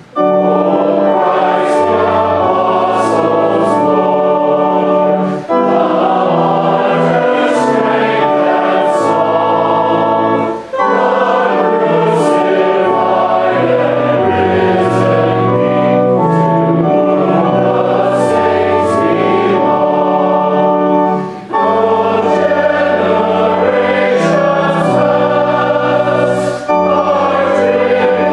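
A congregation singing a hymn with pipe organ accompaniment, in phrases with brief breaks between lines.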